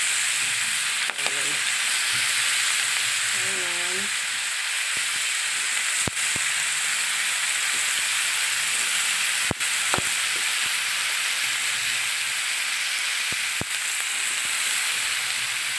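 Vegetables and pork sizzling steadily in a hot wok as they are stirred, with the metal spatula clicking against the pan a few times in the second half.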